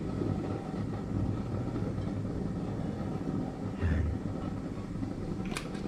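A steady low mechanical hum, with a couple of sharp clicks near the end.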